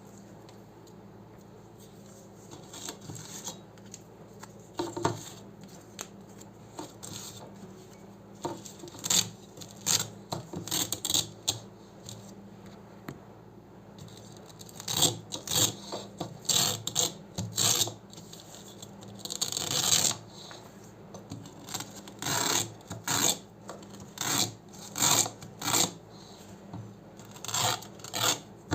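Hook-and-loop (Velcro) fastener being ripped apart again and again, each rip a short crunchy rasp. A few scattered rips come at first, then from about halfway they follow quickly one after another.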